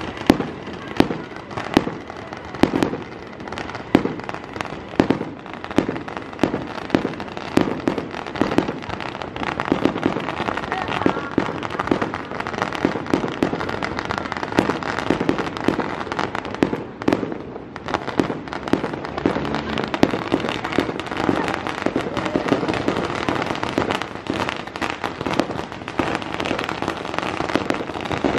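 Aerial fireworks bursting overhead in a rapid run of sharp bangs. In the second half the bangs thicken into near-continuous crackling, with a short lull partway through.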